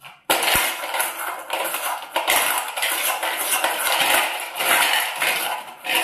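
Small stones clattering and scraping in a steel bowl as they are scooped by hand and spoon, a continuous rattle of many small knocks starting sharply just after a brief quiet.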